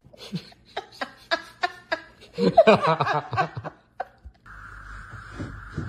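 A person laughing in short, repeated bursts, rising into a longer laugh about two and a half seconds in. A steady hiss-like noise starts near the end.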